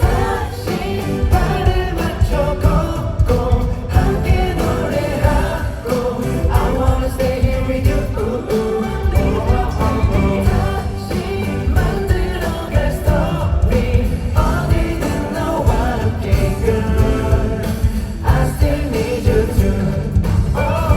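Korean pop song with male singing over a heavy, steady beat, played loud through a concert sound system.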